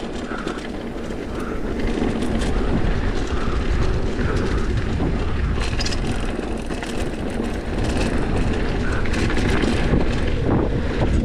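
Wind rushing over the GoPro's microphone and mountain bike tyres rolling on a dirt trail during a descent, with scattered knocks and rattles from the bike over the ground.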